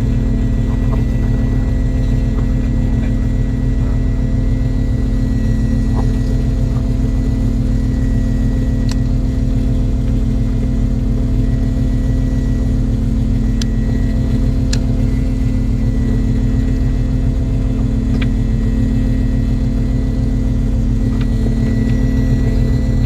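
Fishing boat's engine running in a steady low drone, with a thin high tone over it and a few light clicks.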